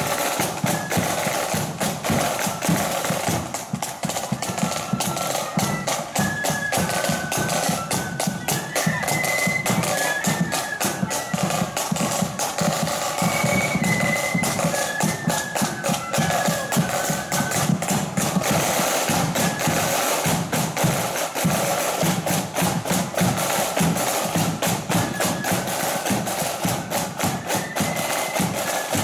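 Marching flute band playing a tune: the flutes carry a stepping melody over rapid, crisp snare drumming, with a deeper drum underneath.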